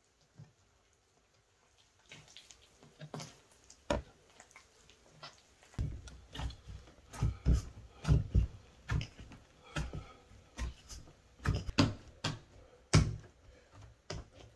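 Hands kneading bread dough in an enamel basin: irregular soft thumps and squelches, starting about two seconds in and getting heavier and more frequent after about six seconds.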